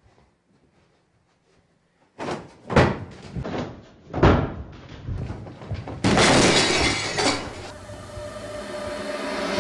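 Tablecloth yanked off a set table, sending teapot, cups and crockery crashing to the floor: a quick run of clattering, breaking china and glass after a short hush.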